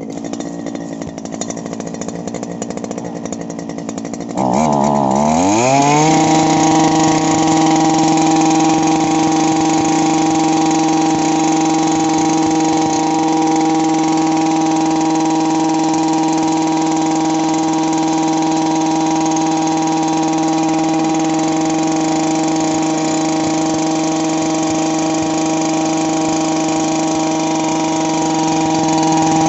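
Stihl BT 230 earth auger's small 4-MIX engine running slowly. About four seconds in, it is throttled up: the pitch dips, then climbs quickly to a high, steady full-speed note that holds while the auger bores into the soil.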